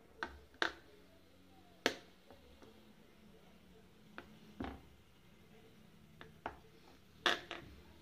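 Kitchen knife pressed down through a slab of homemade paneer, its blade knocking against the tray beneath: a scattered series of short sharp clicks and taps, loudest about two seconds in and near the end.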